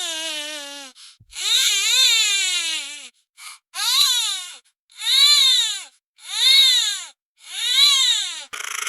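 Baby crying in a string of wails, about one a second, each rising and then falling in pitch. The wail just after the start is longer than the rest, and the one near the end sounds rougher and breathier.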